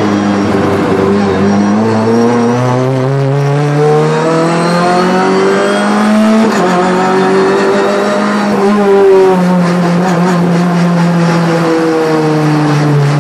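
Renault Clio 3 Cup's two-litre four-cylinder engine, heard from inside the cabin at speed. The revs climb steadily for about six seconds, then drop sharply twice, about six and nine seconds in.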